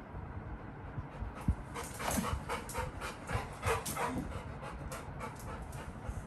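Labrador retriever puppy panting quickly in a rhythmic run of breaths, starting about two seconds in.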